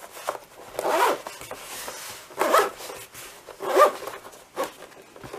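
Zipper on a hard-shell EVA drone storage case being pulled closed in a few short strokes, each a rising rasp, about a second or more apart.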